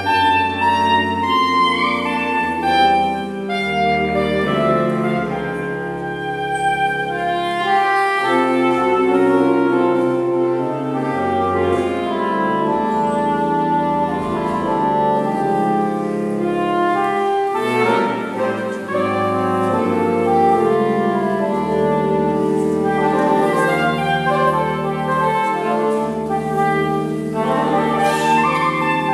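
Saxophone quartet of soprano, alto, tenor and baritone saxophones playing live together in harmony, several held notes sounding at once over a low bass line from the baritone.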